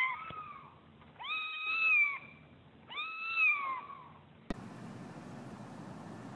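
A grey kitten meowing, two high calls about two seconds apart, each rising then falling in pitch. About four and a half seconds in, a click, then a steady hiss.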